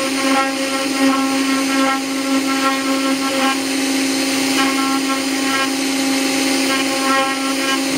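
Haas SR-100 CNC router's spindle running steadily while its engraving bit cuts a grid pattern into a wooden strip. Higher tones come and go over the steady hum in short spells, several times a second or so, as the machine moves through the cut.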